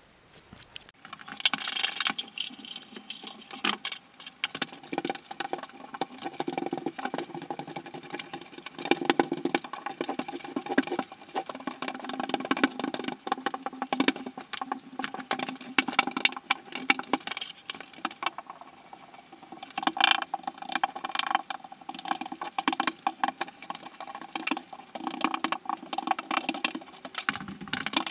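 Grout float scraping and pressing grout across glazed ceramic subway tile on a shower wall: a continuous run of irregular scrapes and clicks that starts about a second in and eases off briefly about two-thirds through, ringing in the small tiled stall.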